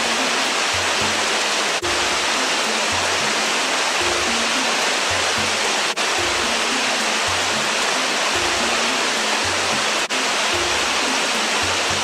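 Water rushing over a weir: a steady, loud rush of noise that breaks off briefly three times. Soft background music with repeating low notes plays underneath.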